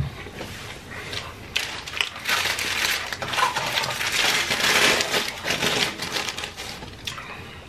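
Paper burger wrapper being handled and unwrapped, crinkling and rustling close to the microphone, busiest from about two to five seconds in and dying away near the end.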